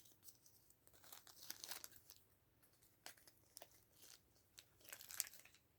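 Faint crinkling and rustling of packaging being handled, in scattered bursts, loudest a little after five seconds in.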